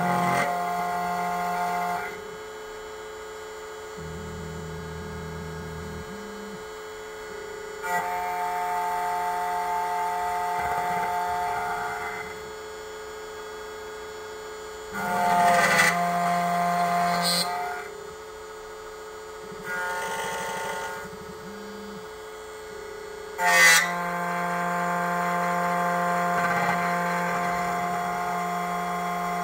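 SEC-E9 computerised key cutting machine milling a car key blank: its cutter and motors run with a whine of several tones that comes in bouts, each starting suddenly, with a quieter hum between them.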